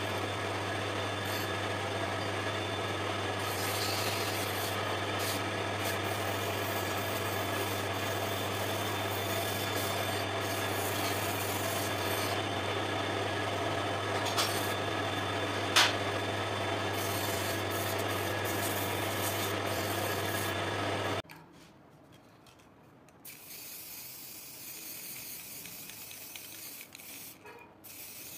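Wood lathe running with a steady motor hum and a continuous rubbing, rasping sound of the loose captive rings and sanding against the spinning wooden spindle, with one sharp click about 16 seconds in. About 21 seconds in it cuts off abruptly, leaving a much fainter steady hiss.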